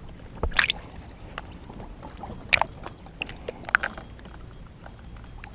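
Water sloshing and splashing around a camera held at or just under the surface beside a kayak, with a few sharp splashes or knocks, the loudest about half a second in and another about two and a half seconds in.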